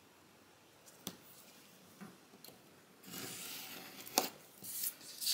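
X-Acto knife blade drawn along a steel ruler, cutting through a DTF transfer sheet on a cutting mat: a scratchy cut stroke about three seconds in, a sharp click, then another short scrape. A single click comes about a second in.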